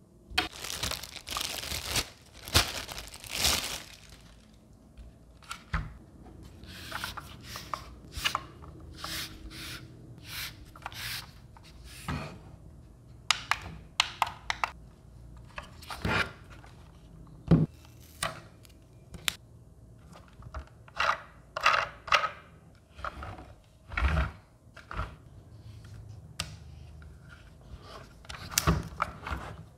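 Plastic bag crinkling and tearing as it is pulled off a hard plastic speaker, then many separate clicks, taps and knocks of the plastic housing being handled and put down, with one heavier thump later on.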